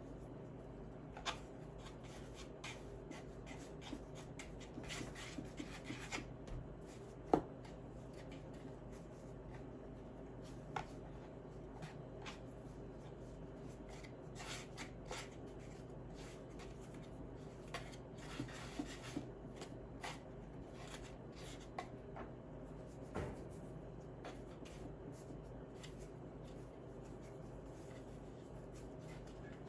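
Hands working bread dough: soft rubbing with scattered light taps and clicks, the sharpest about seven seconds in, over a faint steady hum.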